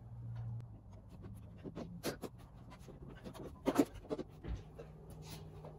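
Intake cover on a VW Rabbit pickup's engine being worked loose and lifted off by hand: scattered clicks, knocks and rattles, the sharpest about two seconds in and again a little before the four-second mark.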